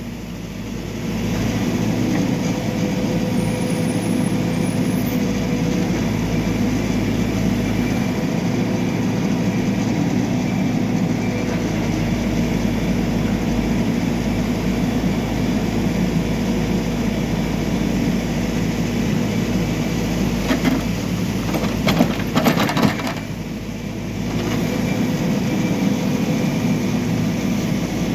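Backhoe loader's diesel engine running steadily, with a cluster of knocks and crunching about three-quarters of the way through. The engine note drops briefly and then picks up again.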